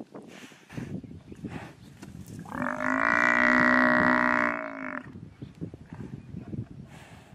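Cape buffalo bellowing once, a long loud distress call of about two and a half seconds that starts about two and a half seconds in, while lions bite and hold onto it. Scuffling and rustling in the grass go on around the call.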